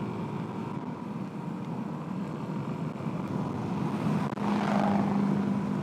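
2008 Suzuki DR-Z400S single-cylinder four-stroke engine running while the bike is ridden, with a steady drone that gets louder about four seconds in.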